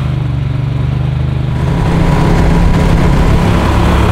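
Surface-drive mud motor running at full throttle under load, driving its propeller through thick lily pads with a steady engine drone and the hiss of spray. The revs rise slightly about two seconds in.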